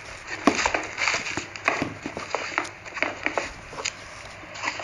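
Irregular light clicks, taps and rustles of a pair of suede sneakers being handled and turned over.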